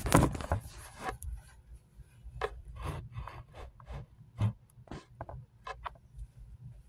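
Bedding being handled as a bed is made: a loud rustle of sheets in the first second, then a series of short rustles and soft taps as the bedding and pillows are moved about.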